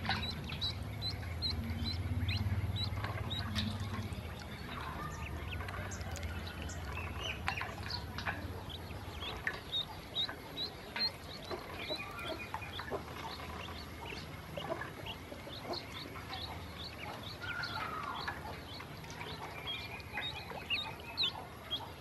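Ducklings peeping: many short, high chirps scattered throughout, with a low rumble over the first few seconds.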